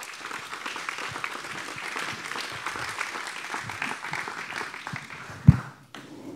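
A roomful of men applauding, the clapping dying away near the end. One dull thump about five and a half seconds in is the loudest sound.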